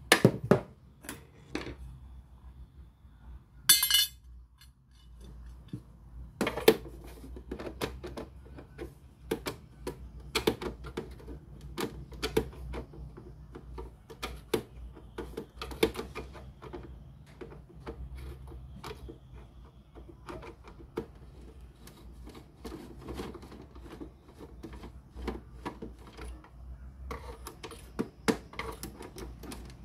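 Irregular clicks, taps and light metallic clinks of small tools and parts being handled while a radio-cassette player is worked on, with a short buzzy rattle about four seconds in, over a faint low hum.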